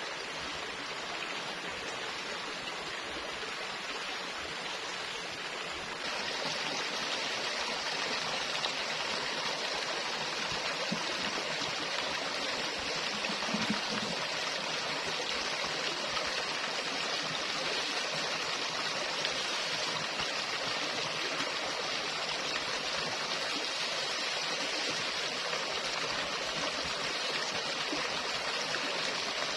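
Steady rushing of flowing water, stepping up louder and brighter about six seconds in.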